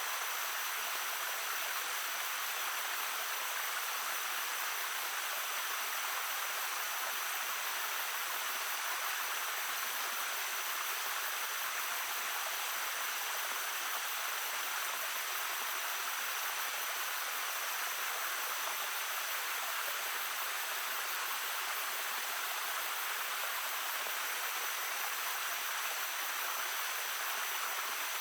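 A small stream babbling steadily, a light, hissy rush of water with little deep rumble.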